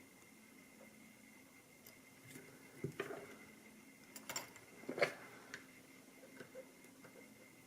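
Single-pin picking of a pin-tumbler padlock: a metal pick scrapes and taps on the pins inside the keyway, giving faint clicks and scrapes, most about three seconds in and between four and five seconds in.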